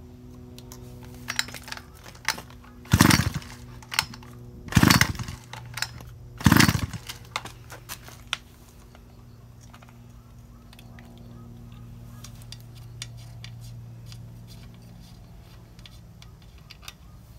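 Recoil starter of a Daiwa two-stroke chainsaw pulled three times, about two seconds apart, each pull a short loud whirr. The engine turns over but does not fire.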